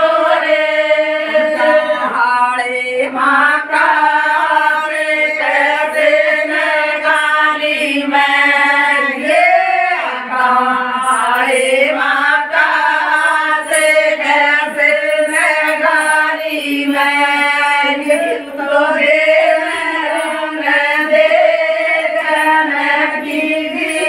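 A group of women singing a folk song together in unison, with no instruments.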